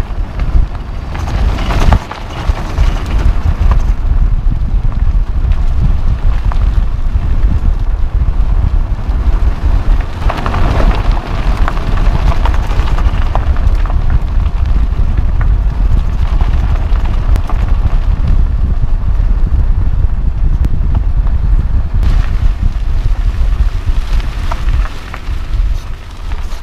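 Wind buffeting and low road rumble on a camera mounted beside a car's front wheel, with the tyre crunching over a gravel and leaf-covered dirt road and small stones ticking. Quieter near the end.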